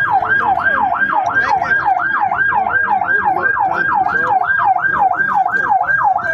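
Emergency vehicle siren in a fast yelp, its pitch sweeping up and down about four times a second without a break.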